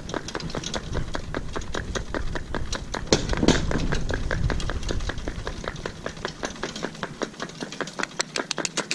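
Pony's hooves clip-clopping in a steady rhythm on a tarmac road as it pulls a light cart, with a low rumble that fades about two-thirds of the way through.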